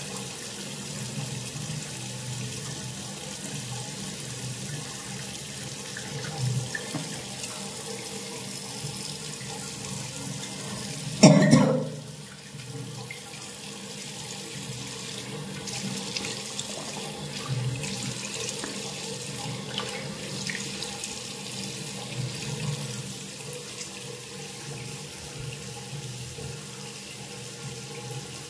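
Tap running steadily into a sink. About eleven seconds in there is one loud, sudden, forceful burst of a person clearing mucus, lasting about half a second, with a few fainter short noises scattered around it.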